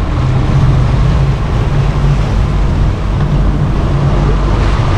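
Boat engines running steadily, a constant low hum with wind noise on the microphone.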